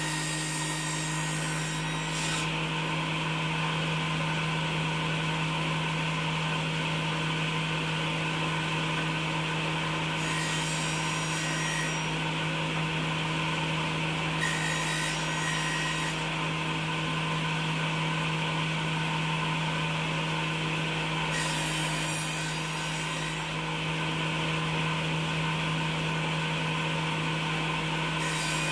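Circular table saw running steadily, its blade cutting linden (lime) wood. The motor keeps a steady hum while the sawing hiss brightens and dulls several times.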